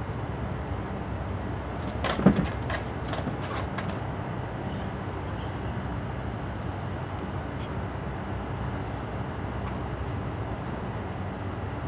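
Steady low rumbling background noise, with a short run of sharp clicks and knocks about two seconds in, one of them much louder than the rest.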